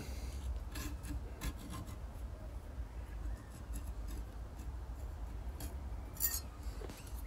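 Carbide point of a blade-marking jig scraping along the edge of a steel chef knife blank, scoring a centre line, in several short scrapes, the strongest about six seconds in. A low steady hum runs underneath.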